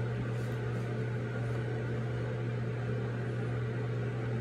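A steady low mechanical hum with a faint hiss, running unchanged.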